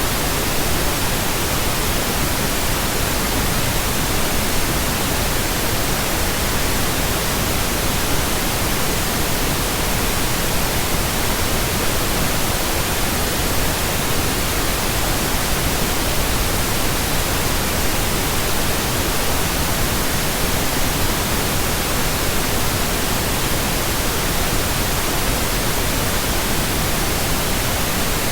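Steady synthetic pink noise: an even, unchanging hiss with no tones or events in it.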